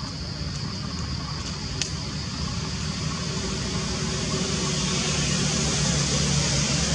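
Steady outdoor background noise: a low rumble with a thin high hiss, slowly growing louder, and one faint click about two seconds in.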